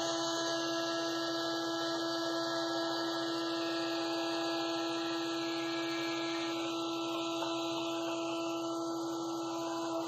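Wood-Mizer WM4500 industrial band sawmill running: a steady hum and whine from the saw head over a hiss of the band blade cutting through a squared timber. The hiss thins a little past halfway.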